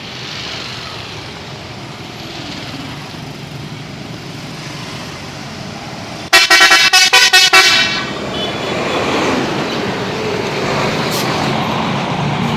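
A bus's 'telolet' multi-tone musical horn sounds a rapid run of short, loud notes lasting about a second and a half, midway through. Steady road traffic noise lies under it, and the vehicle noise is louder after the horn.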